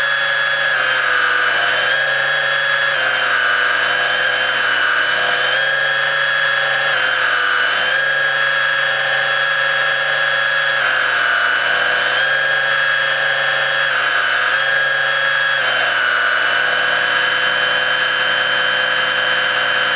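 Radio-controlled model boat's motor whining steadily, heard up close from the camera on board; its pitch dips and steps back up every second or two as the throttle changes.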